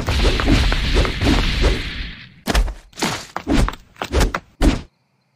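Cartoon sound effect of heavy thudding footsteps: a dense run of low thumps for about two seconds, then about six separate heavy thuds roughly half a second apart, stopping suddenly near the end.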